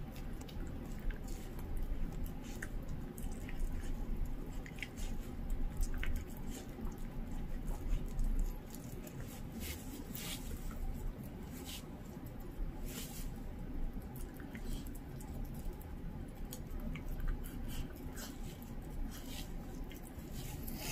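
A dachshund chewing and tearing at a whole raw duck: wet squishing of raw flesh and skin, broken by scattered sharp crunches and clicks as it bites into the breast meat.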